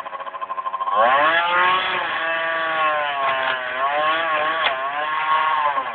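Dirt bike engine revving: the pitch climbs sharply about a second in, then rises and falls with the throttle.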